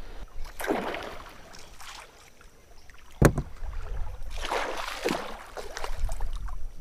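Water splashing as a hooked peacock bass thrashes at the surface close to the boat, with a sharp knock about three seconds in.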